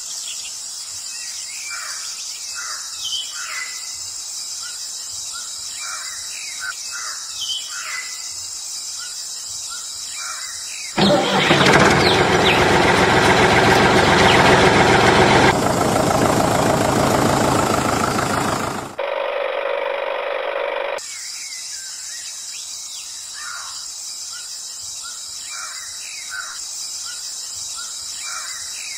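Steady chirring of insects with short bird chirps scattered through it. About a third of the way in, a loud rushing noise breaks in for about eight seconds, followed by a brief muffled stretch before the insects and birds return.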